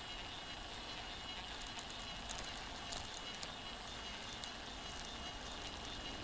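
Bicycle rolling over rough, cracked asphalt: steady tyre-on-road noise with small rattles and clicks from the bike and its camera mount, most of them about two to three and a half seconds in.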